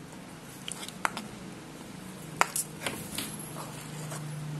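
Metal cutlery stirring mayonnaise into a thick green herb chutney in a ceramic bowl, with a few sharp clinks of the metal against the bowl, the loudest about two and a half seconds in. A steady low hum runs underneath and grows louder near the end.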